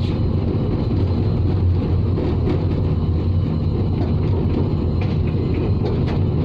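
ZCUP-30 diesel-electric locomotive running, heard from its cab: a steady low rumble from the engine and the train rolling slowly over the track, with a few faint clicks.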